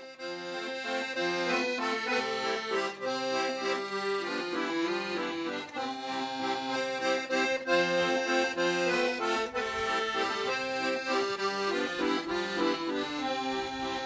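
Paolo Soprani piano accordion playing a traditional folk tune solo, a melody over held chords and bass notes, with no voice.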